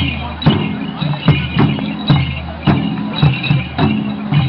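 Limbu chyabrung barrel drums beaten together in a dance rhythm: deep resonant strokes about two a second, with sharper hits between them and a bright ringing layer above.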